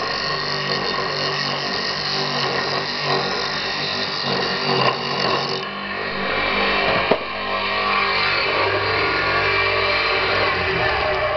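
Homemade wood lathe running, its electric motor humming steadily as it spins a wooden blank. A single sharp knock about seven seconds in.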